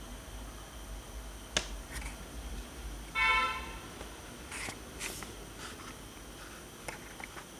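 A short buzzy beep of about half a second, a little over three seconds in, from a small speaker driven by an Arduino. It comes amid a few scattered clicks and ticks.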